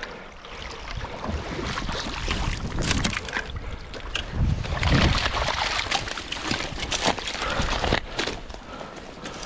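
Shallow creek water splashing and sloshing as a large steelhead thrashes and is handled in the shallows, with irregular splashes throughout. A low rumble of wind or handling noise on the microphone peaks about halfway through.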